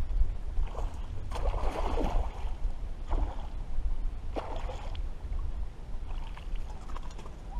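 A hooked fish splashing at the water's surface in several short bursts during the fight, the biggest splash about a second and a half in, over a steady low rumble.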